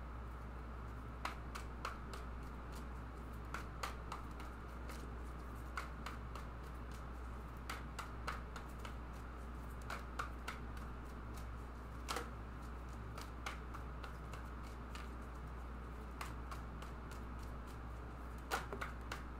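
A deck of tarot cards being shuffled by hand, the cards giving soft, irregular clicks and flicks as they slide into each other, over a steady low hum.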